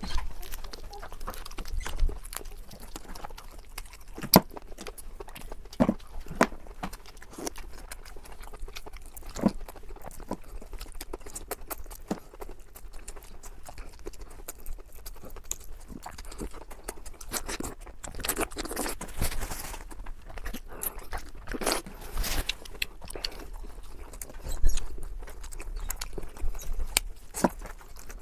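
Close-miked eating sounds: irregular wet clicks, smacks and crunches of chewing, with a few louder sharp cracks scattered through.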